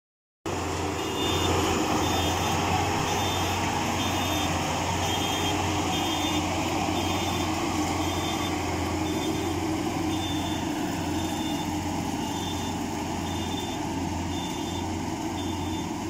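FMWorld tracked rice combine harvester running steadily under load as it cuts paddy, a constant engine and threshing drone with a strong low hum. A short high electronic beep repeats about every three-quarters of a second throughout.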